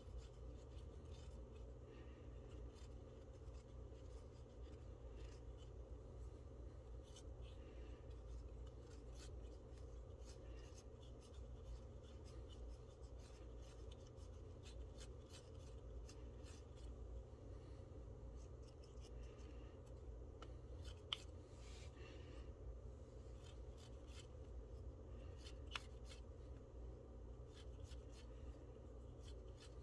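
Faint, scratchy rubbing of a cotton swab over the plastic blades and hub of a laptop cooling fan as dust is wiped off, with scattered small ticks and two sharper clicks in the second half, over a low steady room hum.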